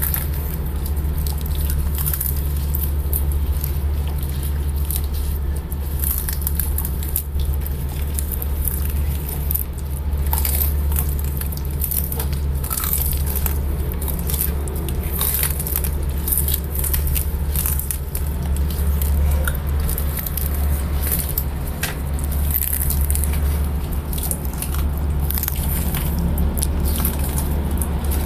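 Leopard tortoises biting and tearing sweet potato leaves: irregular crunching bites, over a steady low hum.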